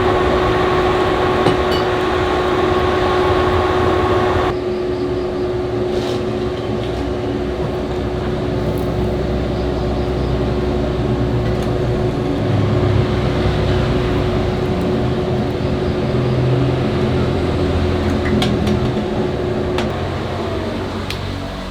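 A motor-driven workshop machine running steadily with a constant hum. Its sound changes abruptly about four and a half seconds in, and it fades away near the end.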